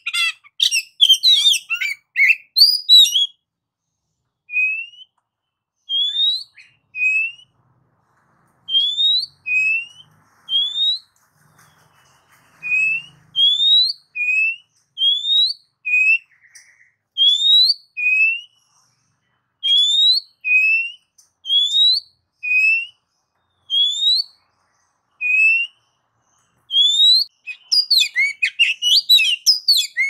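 Oriental magpie-robin (kacer) singing. It opens with a burst of rapid, varied chattering notes, then gives a long run of single rising whistles about one a second, alternating between a lower and a higher note. Near the end it breaks into rapid chattering again.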